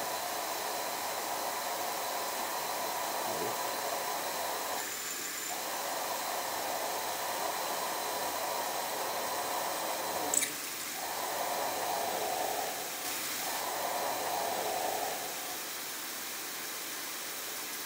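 A 9 mm twist drill boring into F-1140 steel plate at about 800 rpm: a steady hissing cutting noise that breaks off briefly a few times, with one sharp click about ten seconds in.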